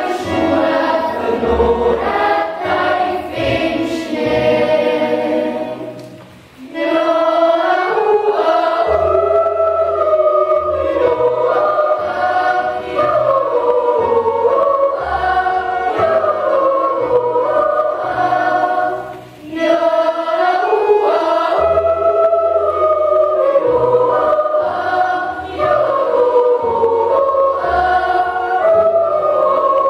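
Children's choir singing, accompanied by accordion and double bass, whose low notes run beneath the voices. The singing breaks off briefly between phrases about six seconds in and again near nineteen seconds.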